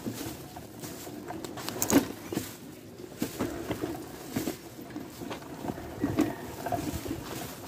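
Fabric rustling and scattered knocks from a phone camera jostling against a jacket, with one sharper knock about two seconds in.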